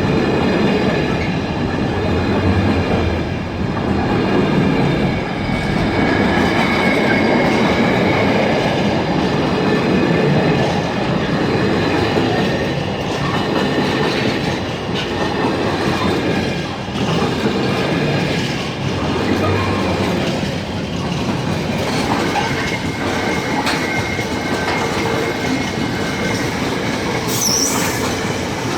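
Train rolling slowly over a level crossing, its wheels running on the rails with a steady squeal of several high tones. A brief high squeal near the end.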